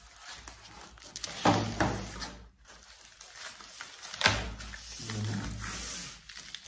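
Foam packing sheets and plastic wrap being handled: uneven rustling and scraping, with louder rustles about a second and a half in and about four seconds in.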